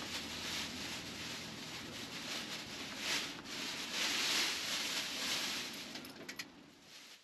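Canvas tent fabric rustling and rubbing as it is handled during pitching, swelling twice, with a few small clicks near the end.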